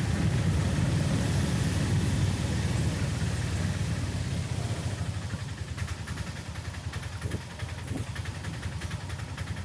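A motor vehicle's engine running steadily with a low rumble, getting somewhat quieter partway through.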